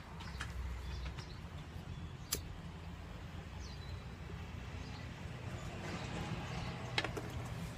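Tobacco pipe being lit: two sharp lighter clicks, about two seconds in and near the end, over a low steady rumble.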